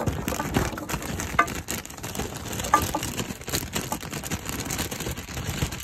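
Baby carrots poured from a plastic bag into a pot onto raw chicken pieces: a continuous clatter of small knocks with the plastic bag rustling, and a few sharper knocks along the way.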